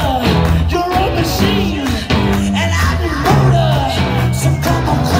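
Rock band playing live, with a singer's voice over the band.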